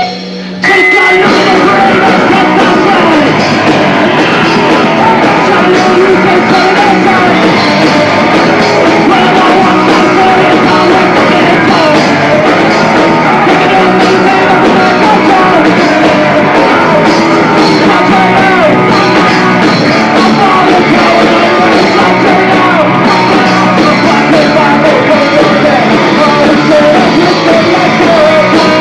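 Punk rock band playing live: electric guitars, drums and vocals together, picked up loud by a VHS-C camcorder's built-in microphone with poor sound quality. After a brief drop at the start, the full band comes in under a second in.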